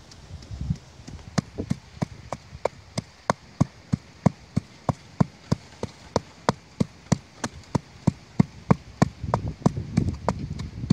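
A hand tool striking in a steady rhythm: sharp knocks at about three a second, starting a little over a second in and running until near the end.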